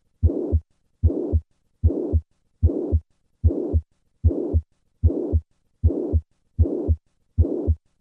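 Heart sounds of mitral regurgitation: each beat a first heart sound followed by a pansystolic murmur that runs all the way to the second heart sound. About ten beats, a little over one a second, steady and even.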